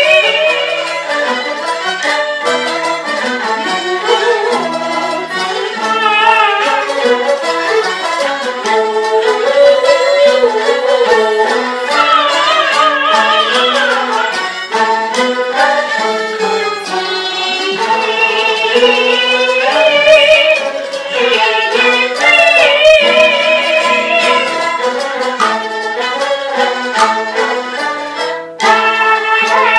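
Jinghu fiddle accompaniment to a Peking opera aria: a bowed, high-pitched melody with wavering vibrato that plays continuously, dipping briefly near the end.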